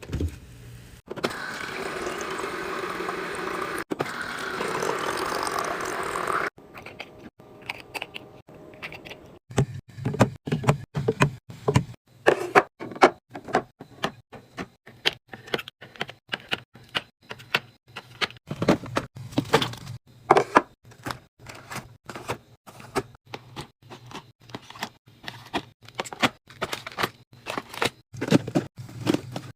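Kitchen restocking sounds: a steady rushing noise for about five seconds, then a long, irregular run of clicks, knocks and clacks as containers and packages are handled and set down.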